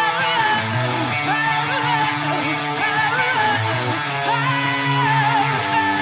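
Rock band playing live: a woman singing lead over electric guitar, bass guitar and drums.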